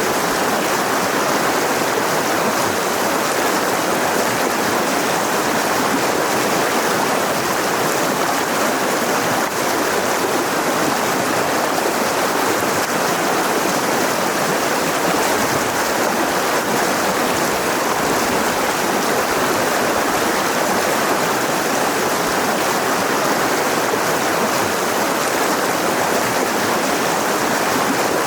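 Mountain river rushing over rocks, a steady, even wash of flowing water.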